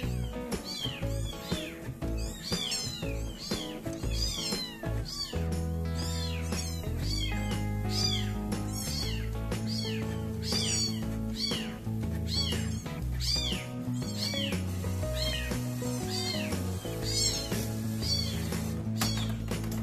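A young kitten mewing over and over in high, thin calls, about two a second, over background music whose bass comes in about five seconds in.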